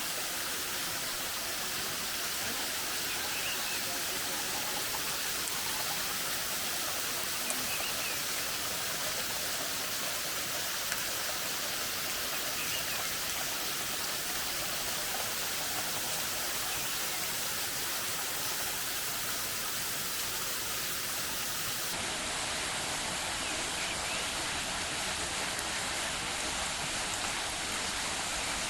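Steady rush of flowing water from a mountain river or waterfall, an even hiss without pauses. The character of the rush changes abruptly about three-quarters of the way through.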